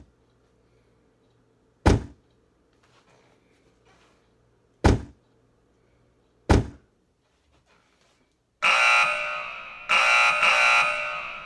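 Three separate sharp thuds, like a door slamming, then a loud ringing alarm bell that starts about nine seconds in and sounds in two bursts, each fading away.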